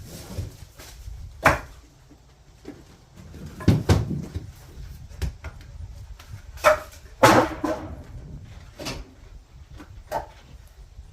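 Irregular wooden clunks and knocks of cut sapling lengths being tossed onto a firewood stack, about seven impacts with the loudest a little past the middle.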